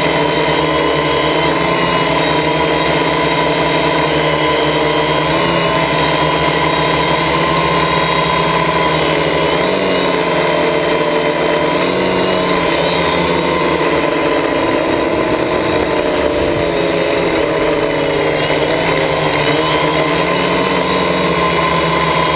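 Quadcopter's electric motors and propellers whining steadily, heard from a camera mounted on the craft itself; the pitches waver slightly a few times as the motors adjust speed.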